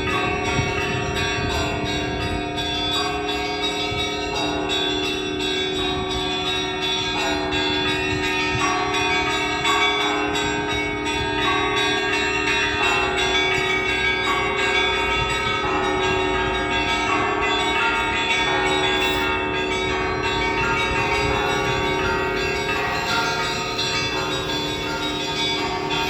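Russian Orthodox church bells ringing together in a continuous peal: many bells of different pitches ringing on, with a group of higher bells struck again about every second and a half.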